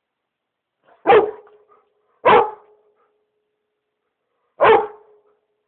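Black Labrador retriever barking: three short, loud barks, the first two about a second apart and the third a couple of seconds later.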